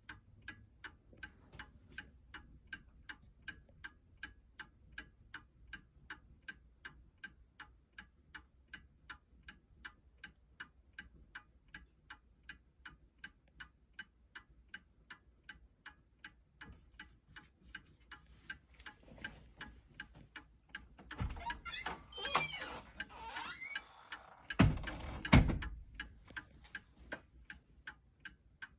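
Antique Seth Thomas 5-bell Sonora chime clock ticking steadily and quickly. In the second half, a few seconds of louder knocks, rustling and squeaky sliding sounds, the loudest near the end, come over the ticking.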